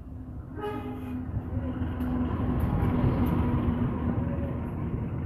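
Diesel locomotive and passenger coaches passing close by, a short horn blast about a second in, then engine and wheel rumble swelling to its loudest about three seconds in as the coaches roll past with sharp clacks from the wheels on the rails.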